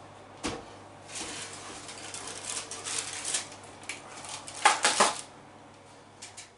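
A kitchen oven being opened and the baked loaf taken out with a quilted oven glove: rustling and scraping, then two loud metallic clatters about five seconds in. A faint steady low hum runs underneath.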